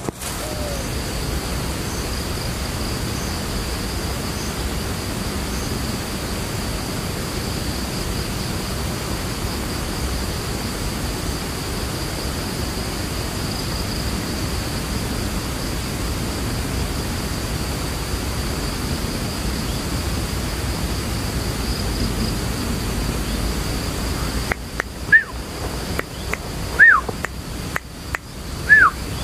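A steady hiss of outdoor background noise with a faint, high, continuous insect drone. About 25 seconds in, the hiss drops away, and a few light clicks and three short bird whistles, each rising then falling, are heard.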